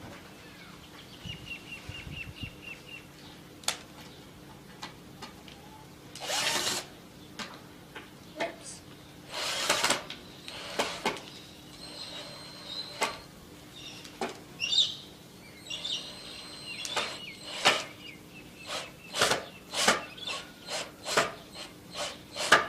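Knocks, clatters and short scrapes of wooden pieces and screws being handled during a woodworking job, irregular at first and coming thicker and faster near the end. A bird chirps faintly near the start.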